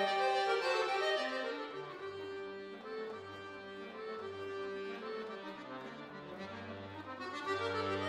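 Solo Cooperfisa concert accordion playing classical music: held chords over a moving bass line, going softer after about a second and swelling louder again near the end.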